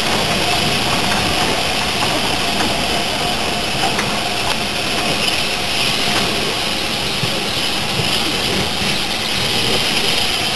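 Fairburn 2-6-4T steam tank locomotive moving off along the platform and drawing away, heard as a steady rumble and hiss with no distinct beat.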